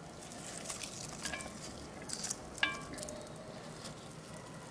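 Soft rustling and light clicks of sliced onion being dropped by hand into a ceramic bowl of sliced peppers, with one brief ringing clink about halfway through.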